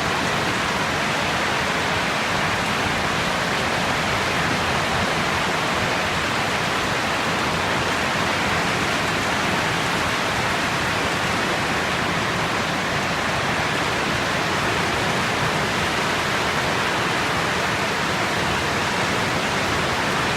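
Strong wind blowing, a steady, even rushing noise with no letup or distinct gusts.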